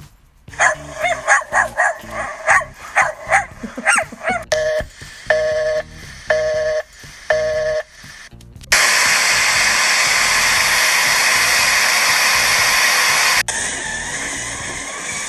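A string of played sound effects: a quick run of short, sharp yelp-like blips, then four evenly spaced electronic beeps, then a loud steady hiss lasting about five seconds that drops suddenly to a quieter hiss.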